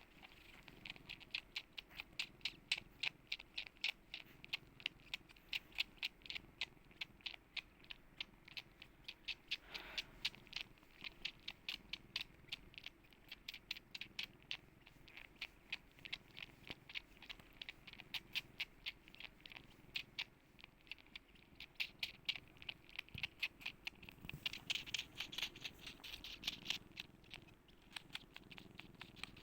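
A cat purring softly under a steady run of small, sharp clicks, about three a second.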